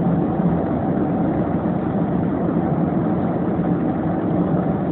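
Steady low engine rumble, even and unbroken, without any rise or fall.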